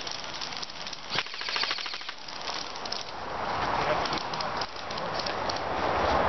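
An airsoft rifle fires a rapid full-auto burst of BBs, a fast rattle of shots starting about a second in and lasting about a second. After it, a steady rustling noise grows louder.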